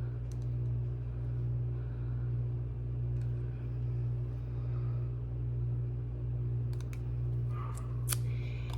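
Steady low hum, with a few faint clicks and taps about seven to eight seconds in.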